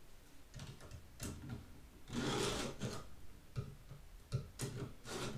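Chainsaw chain being hand-sharpened with a 2-in-1 file sharpener, its round and flat files drawn across the cutters of an Oregon saw chain. A series of uneven file strokes, the longest about a second long starting about two seconds in. The chain is being sharpened because it had gone badly dull.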